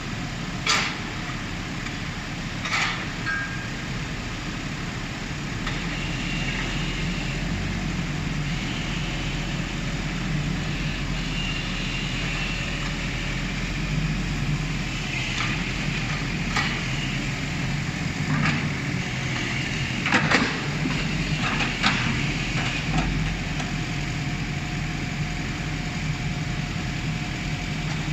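Excavator's diesel engine running steadily, with a few sharp knocks scattered through it.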